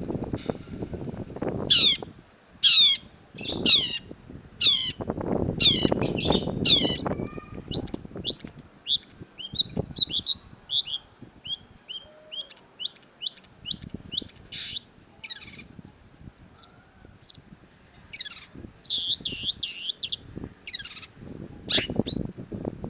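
Long-tailed shrike singing: a series of harsh notes that slur downward, then a fast run of short high chips, then more dense harsh notes near the end.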